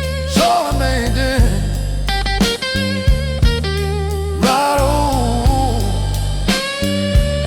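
Slow blues music: a guitar plays bending lead lines over bass and a steady drum kit beat.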